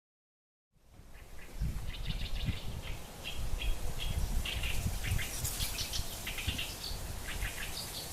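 Small birds chirping and twittering repeatedly over wind gusting through reeds, the wind making an uneven low rumble on the microphone. The sound fades in out of silence about a second in.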